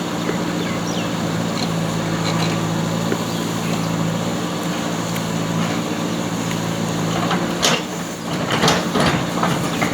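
JCB backhoe loader's diesel engine running steadily. Near the end its note changes and there are a few sharp metallic clatters.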